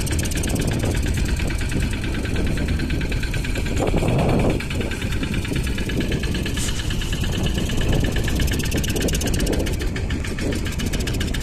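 A fishing boat's engine running steadily at low speed, with a fine, even pulse, and a brief louder rush about four seconds in.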